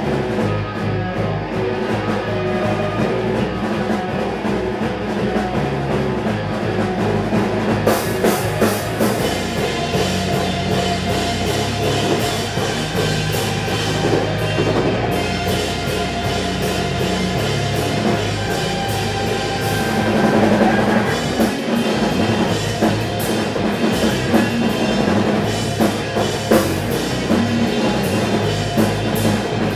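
Rock band playing live: electric guitars, bass and drum kit. The cymbals come in about eight seconds in.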